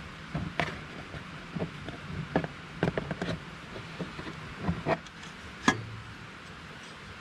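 Hands working a rubber alternator belt over the alternator and fan pulleys: scattered light knocks, taps and scrapes, the sharpest one about five and a half seconds in.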